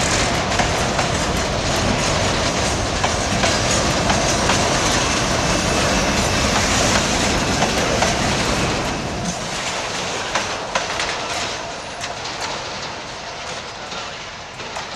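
Freight train boxcars rolling past close by, steel wheels clicking over the rail joints. About nine seconds in the last wagon goes by and the noise fades away down the line.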